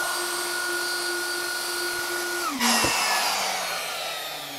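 Festool plunge router with a 1/16 inch bit running at full speed, routing a narrow blade-switch slot through 1/8 inch acrylic against a bushing guide. About two and a half seconds in it is switched off and winds down with a falling whine.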